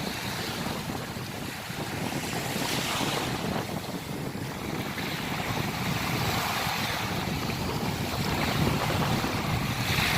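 Red Sea waves washing in a steady rush that swells about three seconds in and again near the end, with wind buffeting the microphone.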